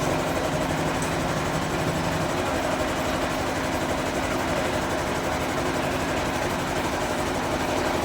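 Band sawmill machinery running steadily: an even mechanical drone with a few constant hum tones.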